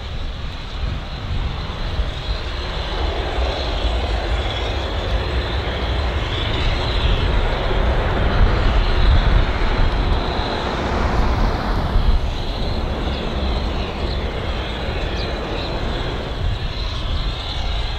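Gulfstream IV's twin Rolls-Royce Tay turbofans rumbling as the jet rolls out after landing. The noise swells to a peak about nine seconds in, then eases as the jet slows.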